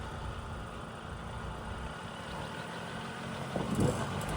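GWM Tank 300 SUV's engine idling steadily, with a few brief clicks near the end.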